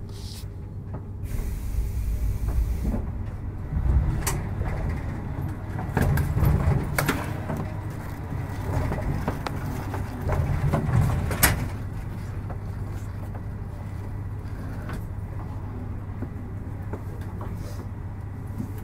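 Pneumatic sliding doors of a JR 721-series electric train working at a station stop: a hiss of air about a second in, then several door thuds and knocks between about four and twelve seconds in, over the steady low hum of the train's on-board equipment.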